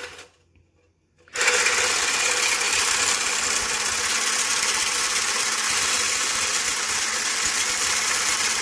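Braun hand blender with a whisk attachment whipping instant coffee, sugar and water in a plastic beaker. Its motor stops briefly at the start, starts again about a second in, and then runs steadily, beating the mixture into a fluffy foam.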